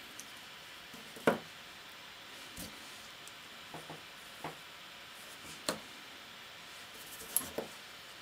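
Small fly-tying scissors snipping synthetic yarn, with a fine comb being handled: a few scattered light clicks and snips, the loudest about a second in.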